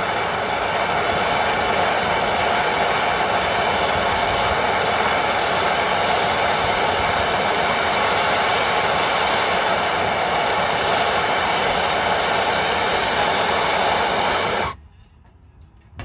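Hand torch burning MAP-Pro gas, a steady rushing flame noise as it heats aluminum sheet up to brazing temperature. It cuts off suddenly near the end.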